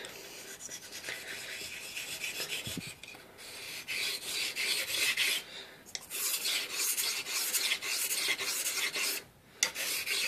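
A Dovo straight razor's steel blade rubbed on the wet 4000-grit side of a whetstone: a steady scraping rasp with a few brief pauses between runs of strokes. It is honing the blade, working circular motions on the heel to bring the edge around.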